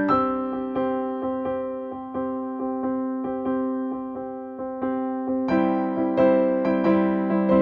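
Background music: electric piano playing a steady stream of notes, growing fuller and louder about five and a half seconds in.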